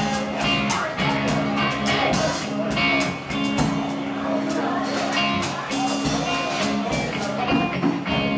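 Live band playing a blues-rock number, with electric guitar, bass and drums keeping a steady beat.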